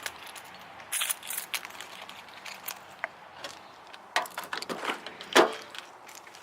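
Scattered clicks, knocks and light clatter of objects being handled, with one louder knock a little after five seconds in.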